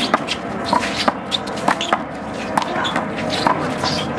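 A one-wall handball rally: a rubber handball is smacked by hand and hits the wall and the concrete court in sharp, irregular slaps about once a second, with faint crowd chatter behind.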